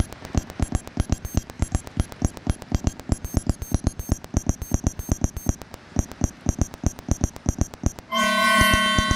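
Live synthesised electronic sound, generated in real time in sync with projected light. It is an even train of sharp clicking pulses, about five a second, with short high beeps over them. About eight seconds in, a loud held synthesizer chord comes in and slowly fades.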